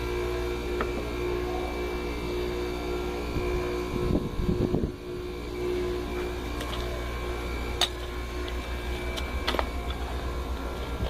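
Air-conditioning compressor running as a water pump, a steady electric hum over a low drone. There is a brief rougher, uneven stretch about four seconds in and a few sharp clicks near the end.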